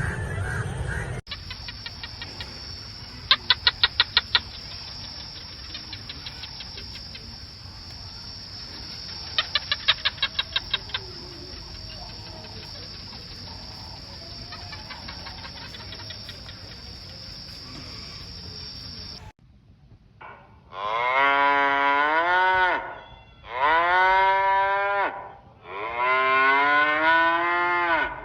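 Two trains of rapid clicks, about ten a second, over a steady hiss. Then cattle mooing: three long moos, each falling and then rising in pitch.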